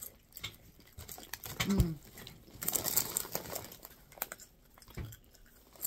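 Crinkly chip bag rustling and crackling as it is handled, in scattered short bursts with a longer rustle about three seconds in, over the crunch of a chip being chewed. A brief voiced sound, like a short hum, comes a little under two seconds in.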